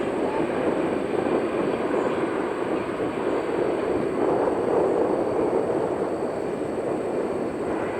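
Mitsubishi CRJ-900 regional jet's twin General Electric CF34 turbofans at takeoff power as it departs and climbs out, a steady rushing engine noise without breaks.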